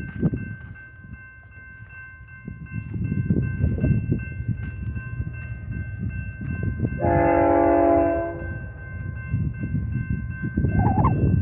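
Approaching freight locomotive's multi-note air horn sounding one blast of about a second and a half, roughly seven seconds in, over gusty low rumbling.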